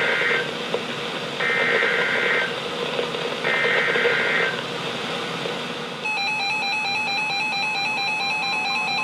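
NOAA Weather Radio SAME alert header: three one-second bursts of buzzing digital data tones about a second apart, over radio hiss. About six seconds in, a steady electronic alert tone starts, alternating between two pitches, and runs on. This is the signal that comes before a new severe thunderstorm warning is read out.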